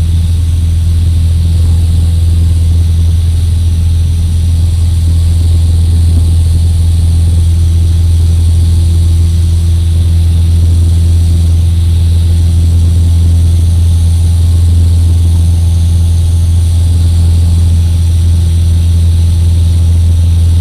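Single-engine Cessna's piston engine and propeller running as a steady, loud drone, heard from inside the cabin.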